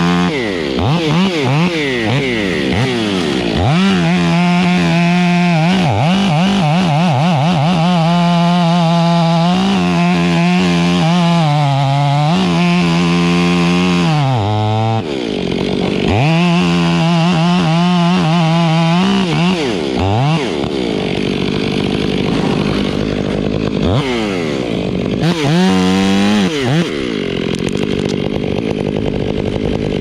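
Chainsaw cutting through silver maple wood, revving up to full speed for cuts of a few seconds each, about five times, and dropping back to a lower speed between them.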